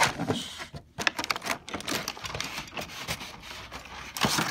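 Hands handling a cardboard toy box: a run of irregular clicks, taps and scrapes on the cardboard, louder near the end.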